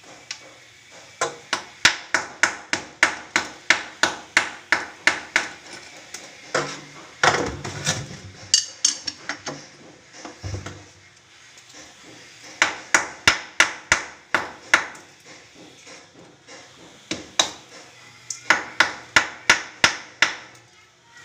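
Hammer blows in quick runs of about three strikes a second, with pauses between the runs.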